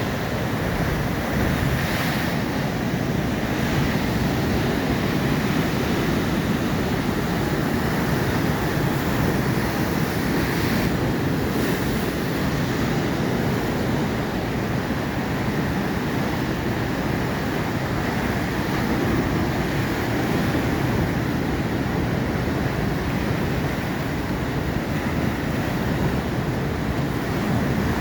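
Atlantic Ocean surf: waves breaking and washing ashore in a steady wash of noise, with wind on the microphone.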